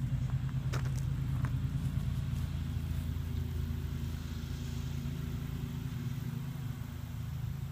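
An engine running steadily at a constant low pitch, with a faint click about a second in.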